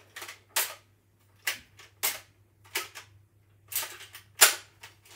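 Toy foam-dart blaster being primed and fired over and over: six or seven sharp plastic clacks and snaps, spaced about half a second to a second apart, with the loudest near the end.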